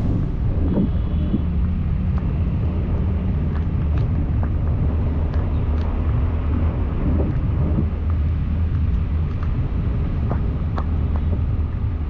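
Car driving on a wet road in the rain: a steady low rumble of engine and tyres, with scattered sharp ticks throughout.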